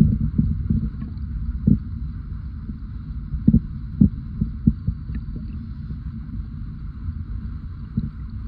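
Sea water heard underwater: a steady low rumble with irregular dull thumps scattered through it, several close together about three and a half to five seconds in.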